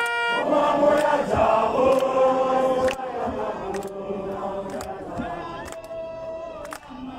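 A crowd of rally-goers singing or chanting together, many voices at once. It is loudest over the first few seconds and softer after.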